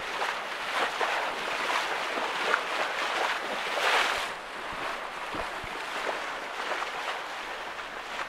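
Water rushing and splashing along the hull of a Westerly Centaur sailing yacht making fast way under sail, with wind. The rush swells and eases, loudest about four seconds in.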